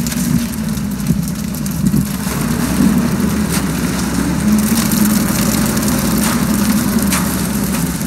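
Transit mixer truck's engine running steadily while wet concrete slides down the chute into the slab formwork, with a few short scrapes and knocks of tools in the concrete.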